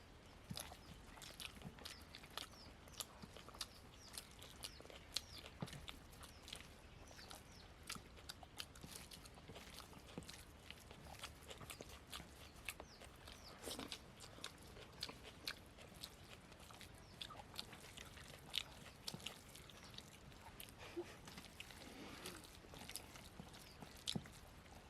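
People chewing and biting mouthfuls of poori with mutton curry: many short, irregular mouth clicks and smacks throughout.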